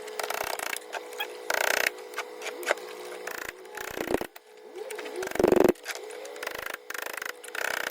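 Metal tools clicking, tapping and scraping against the lower control arm bushing's steel sleeve and inner washers as they are worked out, with a louder scrape about five and a half seconds in, over a steady hum.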